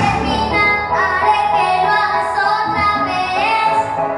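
A young boy singing a pop song in Spanish over a backing track, his voice in held, gliding notes.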